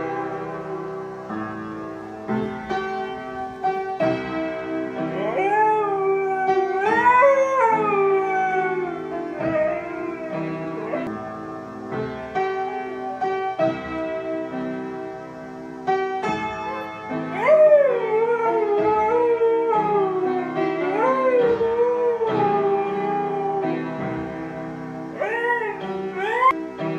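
A dog howling in long wails that slide up and down in pitch, several times, over plucked-string music in a sitar-like style.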